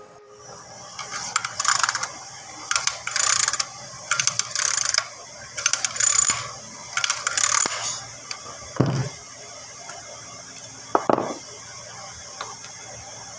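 Ratchet wrench clicking in about five short strokes, then two brief metallic knocks.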